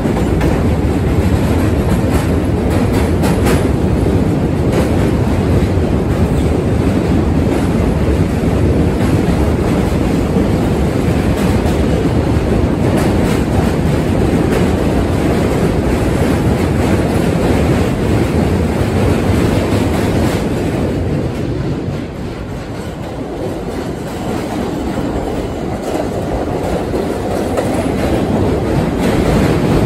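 Budd R32 subway train running past on steel bridge tracks: a loud, steady noise of wheels on the rails with a few clicks. It eases off for a few seconds about two-thirds of the way through, then grows louder again.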